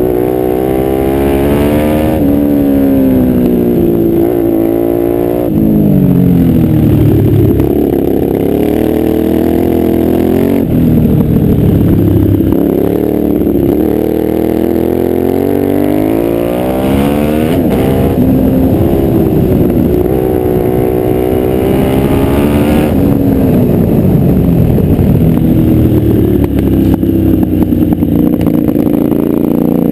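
Quad bike engine running hard under way, its pitch climbing as it accelerates and then falling away about five times as the throttle is eased or it shifts, with wind and tyre noise beneath.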